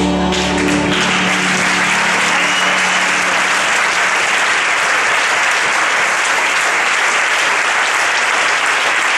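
Audience applauding steadily, breaking out as the held closing notes of the accompanying music die away in the first couple of seconds.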